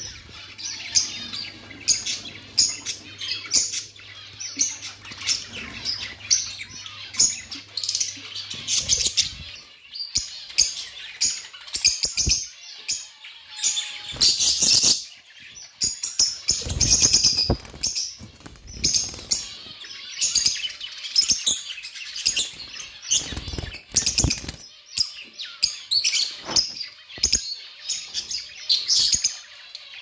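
Caged budgerigars and lovebirds chirping and chattering constantly in rapid, high, sharp calls. A few low fluttering thumps come in the second half.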